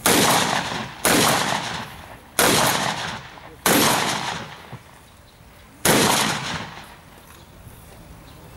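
Five gunshots from a long gun fired from the shoulder, each ringing out and fading over about a second. The first four come roughly a second apart, and the last follows after a longer pause.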